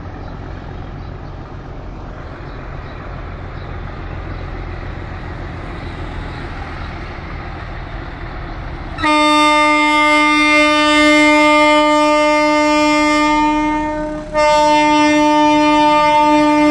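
ALL diesel locomotive 6461 approaching, its engine rumble building slowly. About nine seconds in, its horn sounds one long steady blast, breaks off briefly, then sounds again.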